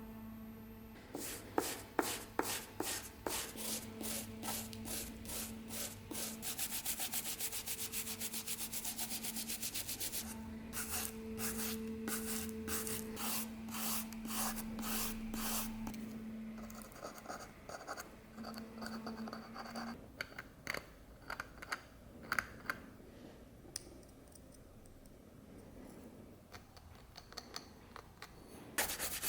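Rhythmic hand scrubbing, brush or abrasive strokes rubbing over a hard surface. The strokes run fast and dense through the first half, then thin out to occasional scrapes and light clicks. A low hum comes and goes underneath.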